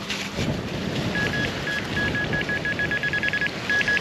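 Metal detector giving a run of short, same-pitched electronic beeps that start about a second in and quicken to a fast chatter in the middle: the detector is signalling a buried metal target under the coil.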